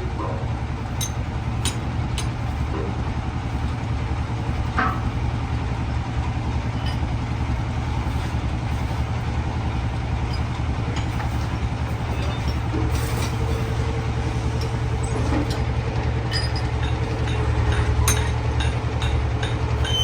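Heavy boring machine running steadily with a low drone and scattered sharp metallic clicks. A steady whine joins about thirteen seconds in.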